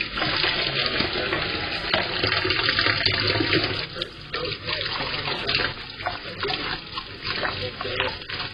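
Kitchen faucet running into a stainless steel sink while glass dishes are rinsed under the stream, with water splashing off them and a few light knocks.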